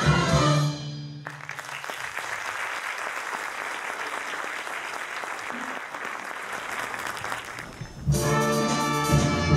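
A youth orchestra ends a piece on a held low note, and the audience applauds for about seven seconds. Near the end the orchestra starts loudly into the next piece, with brass prominent.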